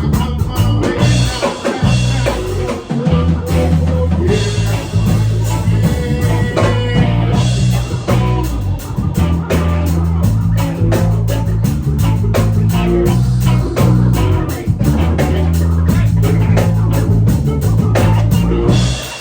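Rock band music: guitar over a repeating bass line and a drum kit, with a short break near the end.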